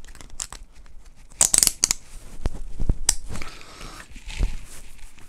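Handling noise of a motorcycle half helmet being put on and its chin strap adjusted: rustling and scraping, loudest about a second and a half in, with a few sharp clicks around three seconds in.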